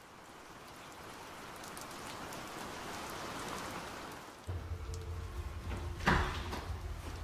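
Steady rain hiss fading in and growing louder over the first four seconds. About four and a half seconds in it cuts to a low steady hum, with a sharp knock about six seconds in.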